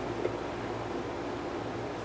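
Steady background hiss of room tone with a faint low hum, and one small click about a quarter second in.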